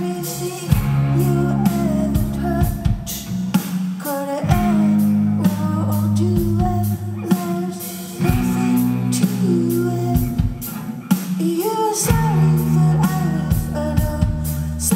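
Live indie rock band playing: a woman singing over electric guitar, steady low bass notes and a drum kit, recorded from within the audience.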